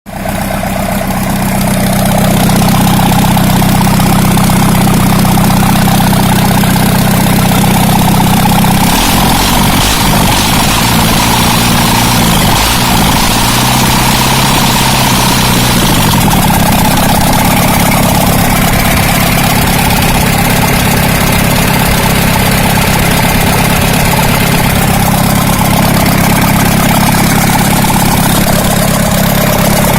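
Daihatsu DL52 four-cylinder turbo-diesel engine, fitted with an RHF5 turbo, running at idle. Its speed shifts for several seconds in the middle, then settles back to a steady idle.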